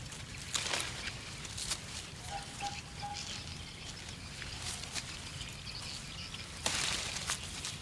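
Guava leaves and branches rustling and crackling as fruit is picked, with scattered snaps and a louder burst of rustling near the end. A brief faint call of three short notes sounds about two and a half seconds in.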